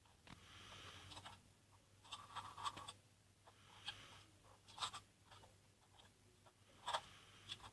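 Faint slime being handled: soft crackling and sticky clicks coming in small clusters, with quiet rustling between.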